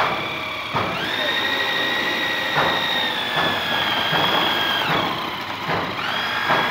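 Handheld electric drill with a paddle mixer churning a bucket of cementitious micro-concrete: a steady motor whine that comes up to speed about a second in, drops away near five seconds and speeds up again about a second later.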